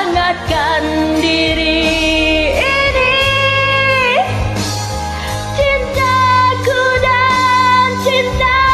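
Karaoke recording of a pop song: a melody of long held notes, sliding into each note, over a steady bass, with a woman singing.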